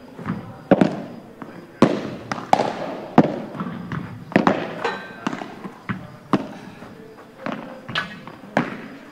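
Padel ball being hit back and forth with rackets and bouncing on the court: a series of sharp pops, irregular and about one a second.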